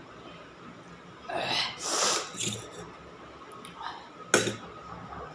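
A few short, breathy bursts of air from a person eating spicy instant noodles, like a cough or sharp sniffs, about a second in. Near the end comes a single sharp clink of a steel utensil against the steel bowl.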